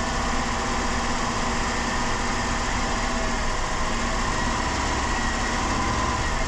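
2007 Dodge Caravan's worn engine idling steadily while Seafoam intake cleaner, its feed line clamped off, burns out of the intake.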